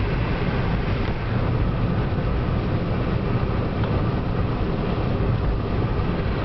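Steady road noise inside a moving car's cabin: engine and tyres on asphalt as the car drives along a road.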